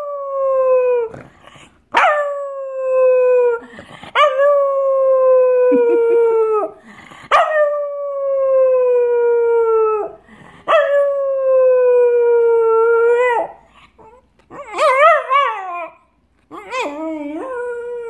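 Cocker spaniel howling: a string of long howls, each starting abruptly and sliding slowly down in pitch, then two shorter, wavering howls near the end.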